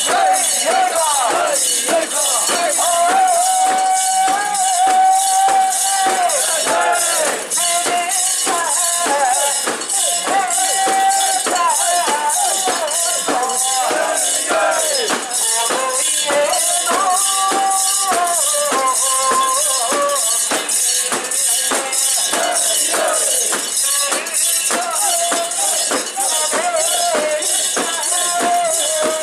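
Metal fittings of a mikoshi (portable shrine) jangling in a steady rhythm, about three clanks a second, as it is carried. A drawn-out, wavering melody runs over the rhythm.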